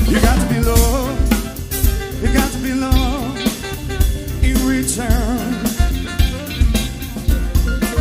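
Live jazz band playing: drum kit with cymbal hits, electric guitar and bass under a lead melody line with a wide vibrato.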